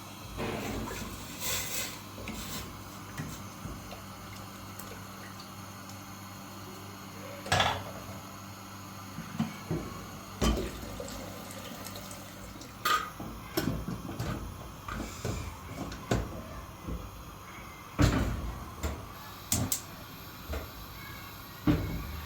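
Scattered knocks and clatters of objects being handled, loudest at three moments, over a steady low hum.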